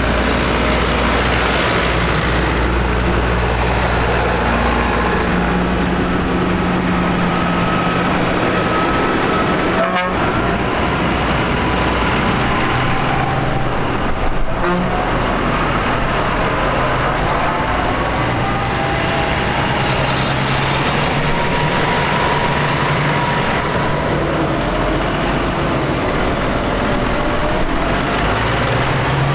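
Tractor diesel engines running as a line of tractors drives past one after another, a continuous low engine rumble with faint whining tones coming and going and a couple of short knocks.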